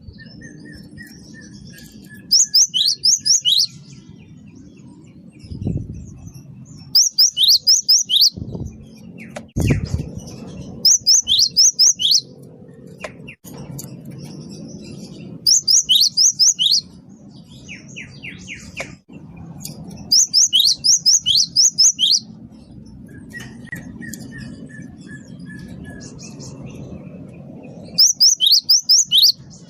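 Cinereous tit (gelatik batu, wingko variety) singing: loud bursts of four to six quick, high notes about a second long, repeating every few seconds. A fainter, lower run of whistled notes comes twice, and a few dull thumps sound in the first half.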